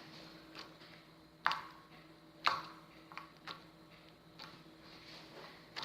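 Old, stiffened homemade slime being stretched and squeezed by hand, giving off sharp, irregular clicks and pops as it cracks. The cracking is a sign that the slime has aged and gone hard.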